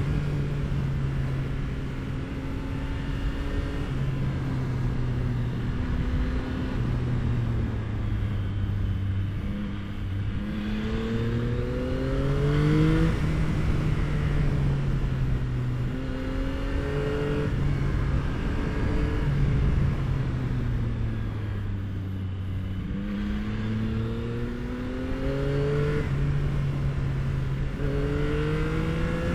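Yamaha R9's three-cylinder engine through an Akrapovic exhaust, heard on board while riding: its note holds steady for stretches and rises several times as the bike accelerates, dropping back between rises, over rushing wind noise.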